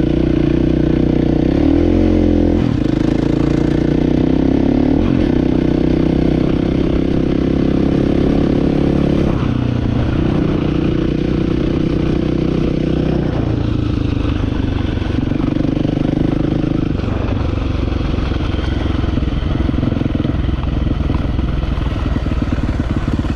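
Dirt bike engine running hard, the throttle opened and eased off so the engine note rises and falls several times, with a quick rev-up about two to three seconds in.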